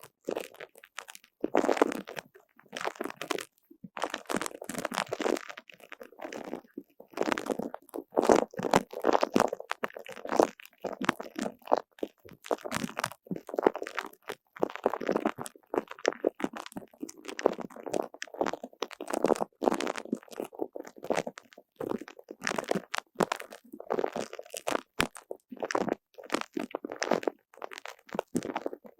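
Sticky, tacky squelching and crackling as a gooey squishy toy is repeatedly pressed and pulled apart, in short irregular bursts with brief pauses between them.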